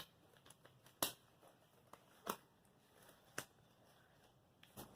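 Scattered faint clicks and rustles of small items being handled, a few sharp ticks spaced a second or so apart.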